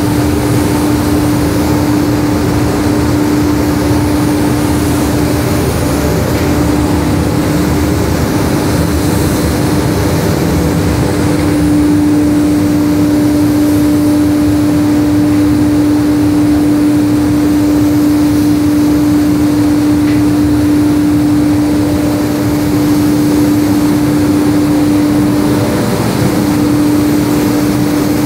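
Steady, loud mechanical din of a paint spray booth: a steady hum from the booth's running machinery over the hiss of a gravity-feed spray gun spraying paint. The hum briefly wavers twice.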